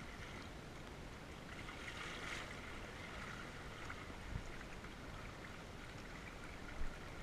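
Water rushing and splashing steadily along the hull of a Hobie sailing kayak under sail.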